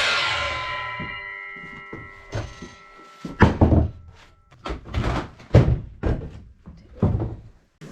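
A power saw spins down after a cut, its blade ringing in several tones as it slows and fades over about two seconds. Then come a series of wooden knocks and thunks, about eight of them, as freshly cut lumber boards are handled and set down.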